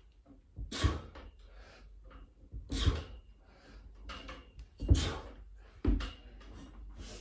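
A man breathing out hard with each pull-up repetition, five heavy breaths spaced one to two seconds apart.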